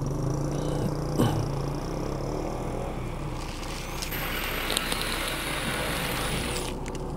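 Bosch electric hand drill running with a step drill bit, boring a size-8 hole through the steel tailgate panel. A steady motor hum, with a short click about a second in and a high hiss of the bit cutting metal from about four seconds in until shortly before the end.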